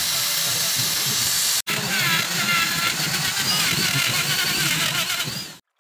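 An angle grinder's wheel grinds hissing against the burr bit of a die grinder, sharpening it. After a sudden break, an electric die grinder with a rotary burr carves into wood, its motor whine wavering up and down with the load, and it cuts off suddenly near the end.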